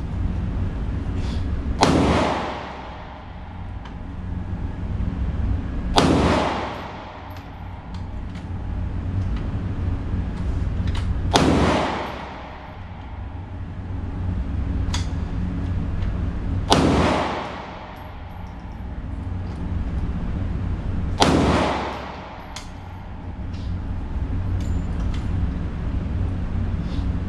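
Five single pistol shots fired slowly, about four to five seconds apart, each a sharp crack with a reverberating tail in an indoor firing range, over a steady low hum. A few fainter clicks fall between the shots.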